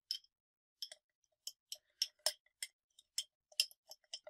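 Metal spoon clinking against the inside of a small glass jar while stirring powder into a thick cream: repeated short clinks at an uneven pace, two to four a second.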